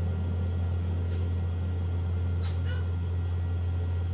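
Steady low hum, with a brief faint high-pitched call about two and a half seconds in.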